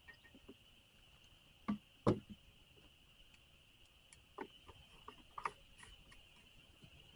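Scattered knocks and clicks of the chainsaw being handled and refuelled, the loudest one about two seconds in, over a steady high-pitched drone of insects.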